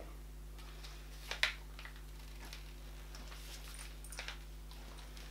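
Quiet room with a steady low electrical hum and a few faint handling clicks and rustles from a small wet dog food container, the sharpest click about a second and a half in.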